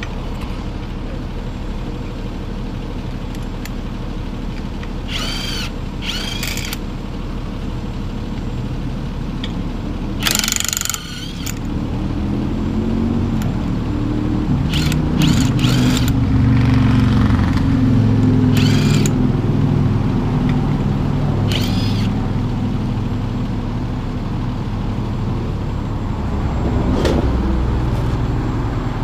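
A vehicle engine running steadily, growing louder from about twelve seconds in, with several short sharp bursts of noise on top, the loudest about a third of the way in.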